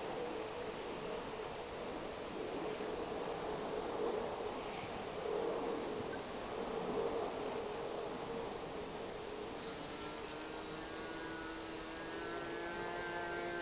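O.S. 91 FX two-stroke glow engine of an RC model airplane, faint and distant at first, then from about ten seconds in its note climbs and grows louder as it throttles up for the takeoff roll and heads toward the microphone. Faint high chirps repeat about every second and a half.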